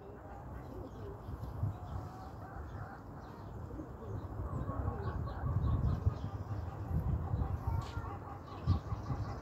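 Chickens clucking in a pen, the short calls growing busier from about four seconds in, over a low rumble.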